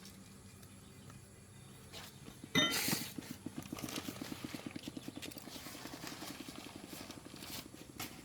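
D8 diesel engine starting with a sudden loud burst about two and a half seconds in, then running with a fast, even beat of about ten pulses a second.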